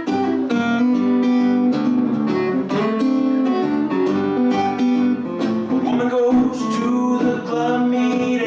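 Acoustic guitar playing a blues introduction: a steady run of picked and strummed notes.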